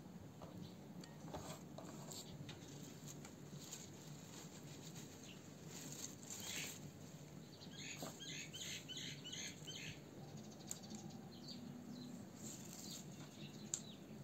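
Faint rustling and light crackling of fresh herb bunches being handled and picked apart by hand, with a small bird chirping a quick run of notes, about four a second, for roughly two seconds around eight seconds in.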